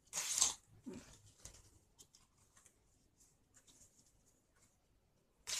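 Fresh banana leaves rustling and crinkling as they are handled and pressed into shape, with a short loud rustle just after the start and another near the end, and faint crinkles between.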